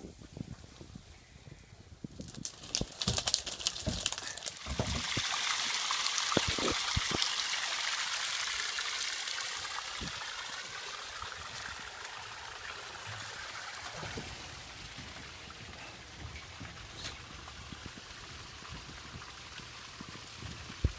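Water trickling and splashing in a trout hauling tank, starting about five seconds in and slowly fading, after a few knocks and clatters of handling.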